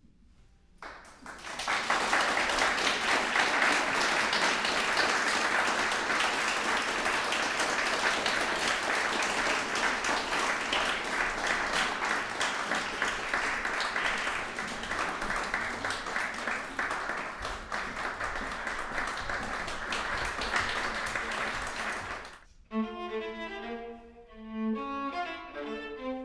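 Audience applauding for about twenty seconds, then stopping. Near the end a viola begins playing.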